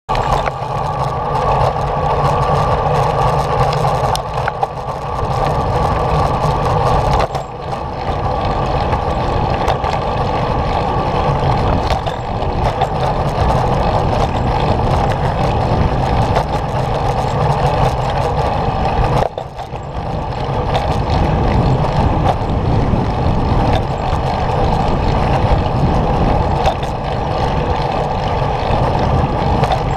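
Wheels rolling steadily over a paved path: a constant rumble and hiss from the ride, easing briefly twice, about 7 and 19 seconds in.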